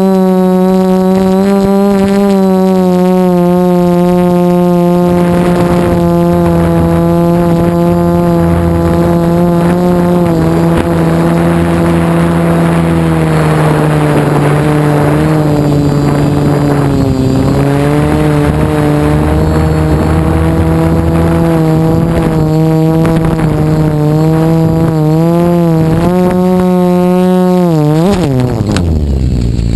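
DJI F450 quadcopter's brushless motors and propellers buzzing steadily in flight, heard through the frame-mounted GoPro. Near the end the pitch wavers, then drops sharply as the motors throttle down and the quad comes down into the grass.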